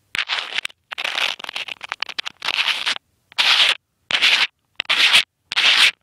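Fingers rubbing and scraping on an iPod Touch and its clip-on lens close to the device's microphone while screwing a wide-angle lens onto a macro lens, in about eight short scratchy bursts with silent gaps between them.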